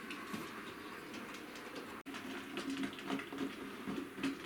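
Hornby model locomotive running very slowly on model railway track: a faint motor hum with light, irregular clicks from the wheels on the rails.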